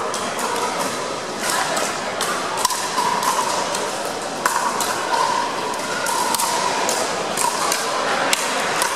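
Pickleball paddles hitting a hard plastic ball and the ball bouncing on a hard court floor: irregular sharp pops, a dozen or so across several seconds, echoing in a large gym over a faint background murmur.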